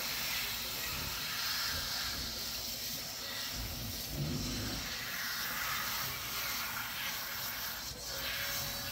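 Pull-down kitchen faucet sprayer running in a steady hiss, the water spraying through a child's hair and splashing into a stainless steel sink as shampoo is rinsed out.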